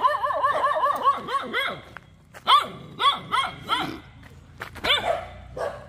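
Several dogs barking: a fast run of high yapping barks, about five a second, for the first two seconds, then shorter volleys of barks.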